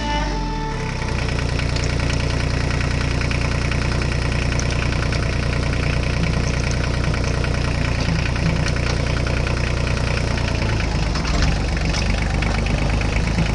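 A tractor engine idling steadily, with an even low throb; music fades out under it in the first second.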